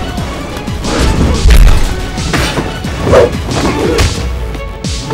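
Staged film fight: a rapid series of punch, elbow and knee hits, several heavy, the loudest about a second and a half in, with a man's pained shout, over background music.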